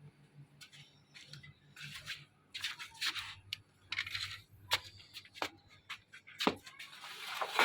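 Washing machine motor humming faintly under test, the hum dropping slightly in pitch about two and a half seconds in and fading out soon after, with scattered light clicks and rattles of parts being handled and a sharper knock near the end.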